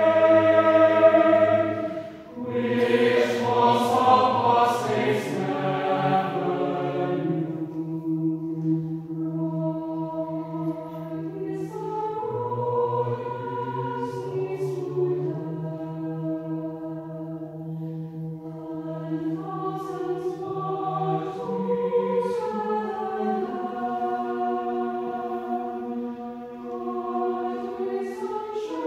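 Mixed choir of men's and women's voices singing sustained chords, breaking off briefly about two seconds in, softer through the middle and swelling again near the end.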